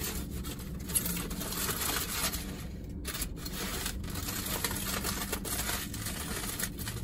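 Aluminium foil wrapper crinkling and rustling as it is handled, a dense run of small crisp crackles.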